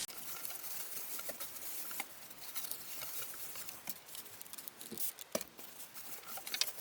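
Scratchy rubbing and small clicks of a plastic joystick being wiped clean by hand, the wipe scrubbing over the casing to remove dirt that is stuck on.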